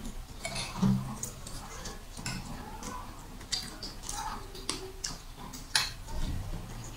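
Metal forks clinking and scraping against ceramic plates as noodles are eaten quickly, in scattered sharp clicks, with a dull bump about a second in.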